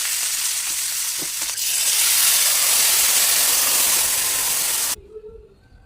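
Food frying in hot oil: a steady sizzle that grows louder about a second and a half in and cuts off suddenly near the end.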